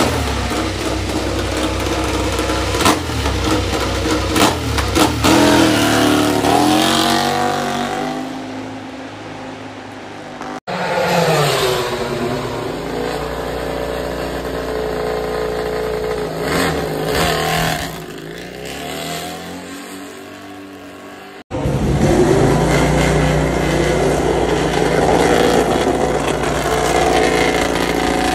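MotoGP race-bike engines, including a GASGAS factory bike, being run and revved in the pit garage. Engine speed rises and falls with the throttle, in three separate clips that cut off abruptly about ten and twenty-one seconds in.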